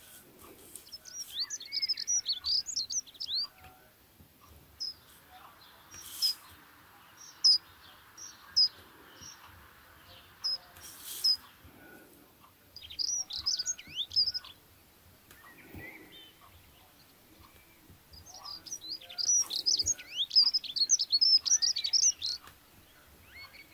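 Small birds chirping in quick, high twittering bursts, three main bursts with scattered single chirps between.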